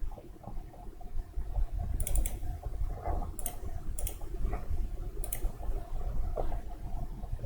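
A handful of sharp clicks at a computer, a close pair about two seconds in and then single clicks spread over the next few seconds, over a low steady hum.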